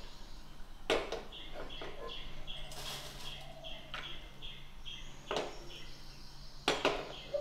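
Peanuts being stirred by hand in hot oil in a small non-stick frying pan on a gas stove, with a few sharp knocks and clinks against the pan. A bird chirps steadily behind it, about three short chirps a second.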